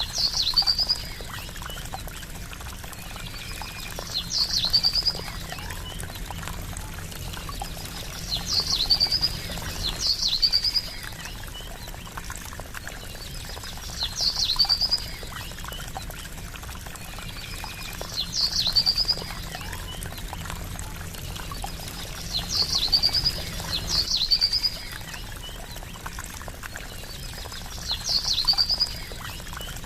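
Steady trickling water with a small bird repeating a short, high call phrase about every four seconds: a sharp downward stroke, then a quick trill. Fainter lower notes come between the phrases.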